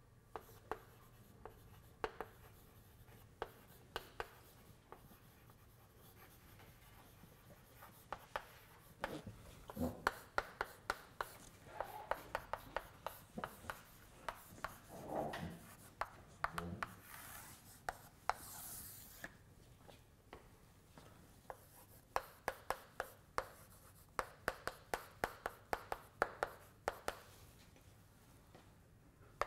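Chalk writing on a blackboard: quick clicks and taps in several bursts as equations are written, with a short stretch of scratchy scraping a little past the middle.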